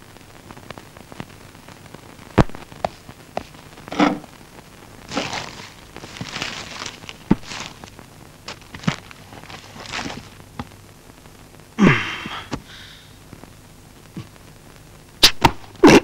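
Paper bag and packets rustling as food is unpacked on a table, with scattered light knocks and clicks of things being handled.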